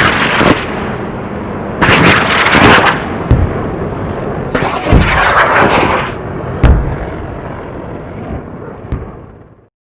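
Cinematic battle sound effect: a string of heavy gunshot and explosion blasts, each with a long rumbling tail, dying away near the end.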